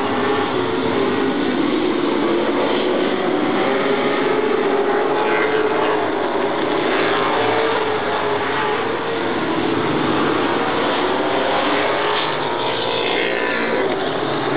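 Several oval-track race car engines running together at speed, with a steady dense sound and now and then a car's pitch gliding as it passes.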